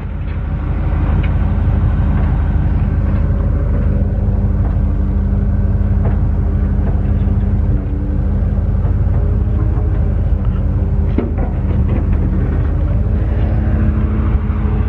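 1976 Chevy C50 truck's 350 small-block V8 idling steadily, a little louder after the first couple of seconds.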